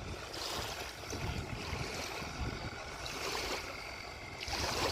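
Lake water splashing in repeated swells, about one a second, over a steady hiss of wind.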